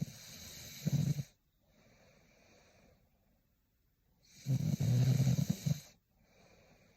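A sleeping young woman snoring: two loud, rattling snores about four and a half seconds apart, each followed by a softer breath.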